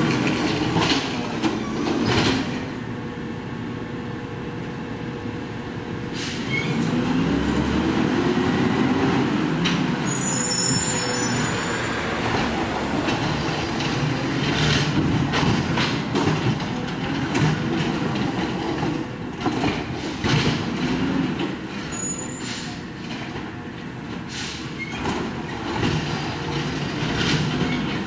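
Natural-gas engine of a McNeilus ZR automated side-loader garbage truck, revved hard and falling back again and again while the hydraulic arm grabs, dumps and sets down carts. There are a few sharp clanks near the start and brief high squeals.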